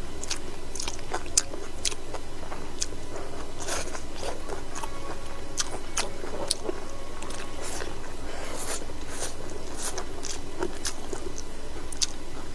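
A person eating close to the microphone: chewing and biting food with irregular crisp clicks and crunches, a few each second, over a steady low hum.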